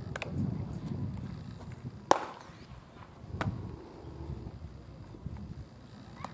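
Baseballs smacking into leather gloves during a game of catch: sharp pops, the loudest about two seconds in and another about a second later, over low wind rumble.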